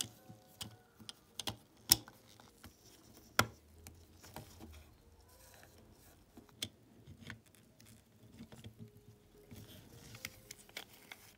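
Scattered light clicks and taps of small model-car parts being handled, with two sharper clicks about two and three and a half seconds in.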